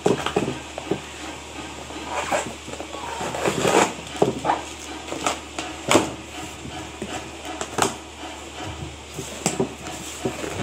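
Irregular knocks, taps and rustling, as of a box and the things packed in it being handled and opened, over a low steady hum.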